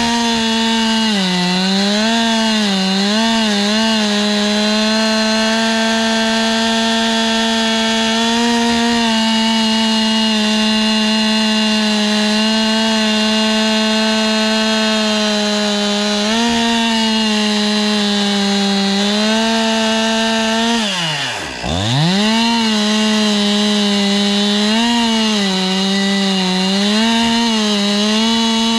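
Chainsaw engine running at high revs while milling a log, its pitch sagging and recovering as the cut loads it. About 21 seconds in the revs drop steeply, nearly to idle, then climb straight back to full speed.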